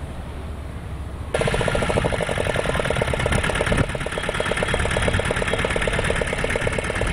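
An engine running with a fast, even chugging. It cuts in abruptly about a second and a half in, after only a faint low hum.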